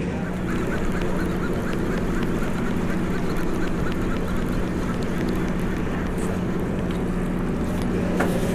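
Party boat's engine running with a steady low hum, with a quick run of faint ticks in the first couple of seconds.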